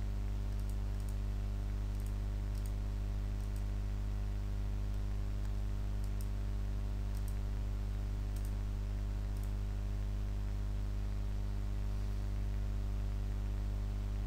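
Scattered faint clicks of a computer mouse as brush dabs are painted, over a steady electrical hum.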